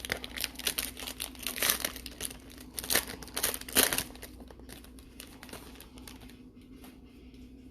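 Plastic wrapping crinkling and tearing as a sealed football card box or pack is opened, busy for about four seconds and then dying down to a few faint rustles.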